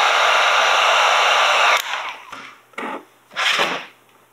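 Electric heat gun blowing a steady rush of hot air onto vinyl wrap film to soften it, switched off abruptly about two seconds in. Two short scuffs follow.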